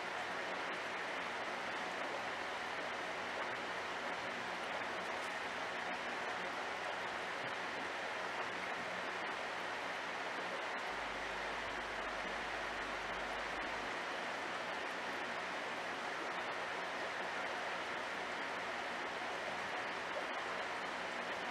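Steady, even hiss of water running in a fish tank, with a faint low hum underneath.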